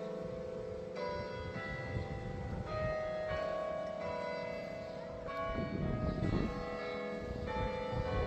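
Church bells of the Priory Church of St George ringing: bells struck one after another at an uneven pace, each note ringing on and overlapping the next.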